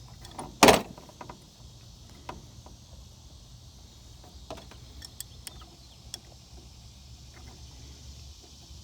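Downstreamer chemical injector being handled and screwed back together by hand: one sharp knock under a second in, then scattered lighter clicks. A steady low hum runs underneath.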